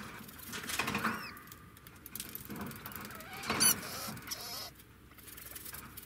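Degu calls: a few short squeaky chirps with gliding pitch, the loudest a sharp high squeak about three and a half seconds in.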